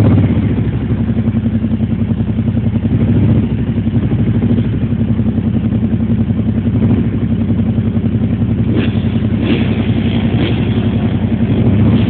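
ATV engines, among them a Kawasaki Prairie 700 V-twin, idling steadily at the line before a drag launch, with a few short clacks in the last few seconds.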